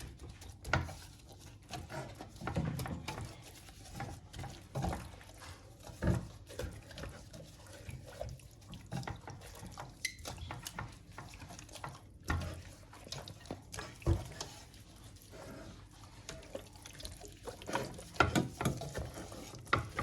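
Hands rubbing wet blended spice paste into raw whole chickens in a pan. The wet handling sounds come irregularly, with occasional soft knocks.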